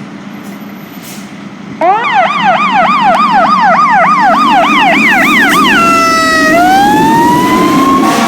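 A fire truck's electronic siren starts about two seconds in on a fast yelp, sweeping up and down about three times a second. Near the middle it drops and winds slowly up into a long rising wail, over a low steady engine rumble.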